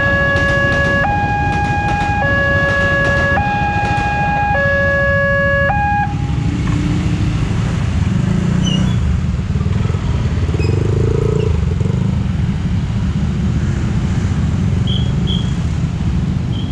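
Railway level-crossing alarm sounding an electronic two-tone pattern, low and high tones alternating about once a second, which stops about six seconds in as the crossing clears. Underneath runs a steady rumble of the passing electric commuter train and of motorbike and car traffic, which carries on after the alarm stops.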